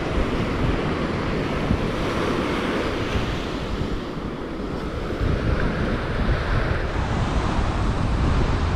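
Wind buffeting the microphone over surf breaking on the shore, a steady rushing that grows a little louder about five seconds in.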